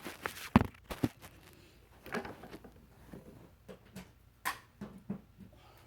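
Handling noise: a few sharp knocks and clicks, the loudest about half a second in, then scattered quieter taps. No motor is running.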